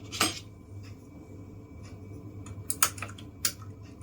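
Small plastic keycaps of a low-profile mechanical keyboard being handled and swapped, giving a few scattered sharp clicks and taps over a faint steady low hum.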